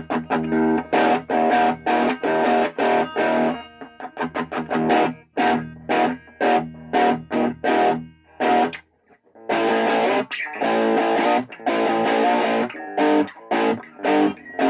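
Thomson Les Paul-style electric guitar played through a small 15-watt practice amp with the overdrive on: short strummed chords in a choppy rhythm, with a brief pause about nine seconds in.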